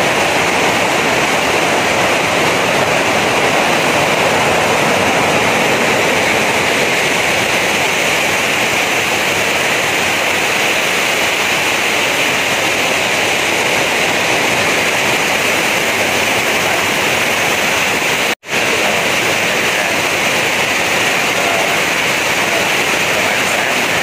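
Loud, steady rush of a large waterfall pouring into rocky white-water rapids. The sound cuts out for an instant about eighteen seconds in.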